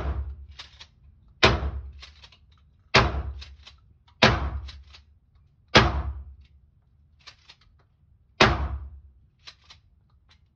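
Mossberg Maverick 88 pump-action shotgun firing birdshot, six shots about one and a half seconds apart, booming in an indoor range. Each shot is followed by the clack of the pump being racked.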